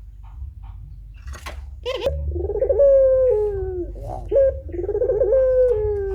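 Puter pelung, a domestic Barbary dove, cooing. After a couple of short clicks, it gives two long, drawn-out coos that each step down in pitch, over a steady low hum.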